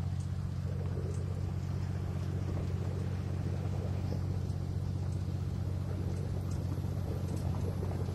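Engine of a vehicle running steadily while driving, heard from inside the cab as a constant low drone with light road noise.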